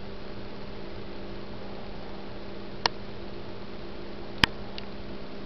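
Steady hiss with a low electrical hum. Two sharp clicks come about three and four and a half seconds in, the second the louder, followed by a faint tick.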